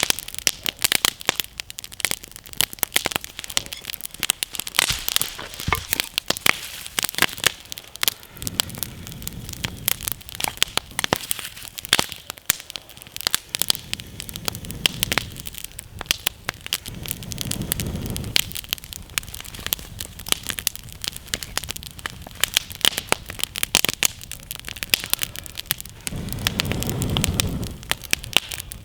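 Wood campfire crackling and popping, a steady stream of sharp snaps of burning wood, with a low rushing sound swelling up a few times.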